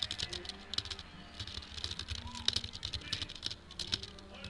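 Typing on a computer keyboard: quick, irregular keystrokes, several a second, with a couple of short pauses.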